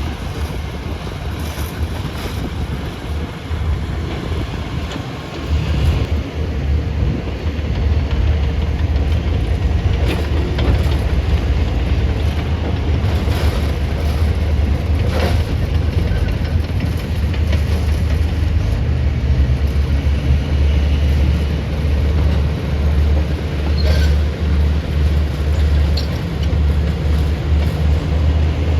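Excavator's heavy diesel engine running, growing louder about five seconds in as it takes on load, with a few faint knocks on top.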